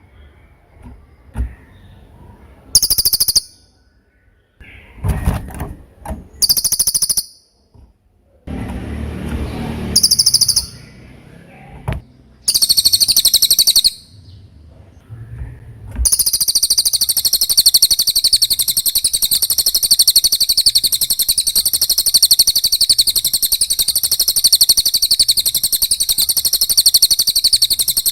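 Cililin (serindit, a hanging parrot) singing: short bursts of rapid, very high-pitched chirping, then about halfway through a long unbroken run of the same rapid chirps. A short rush of lower noise comes between the early bursts.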